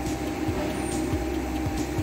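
Steady mechanical hum of a running fan or machine in a workshop, holding two even tones, with soft low thumps about twice a second.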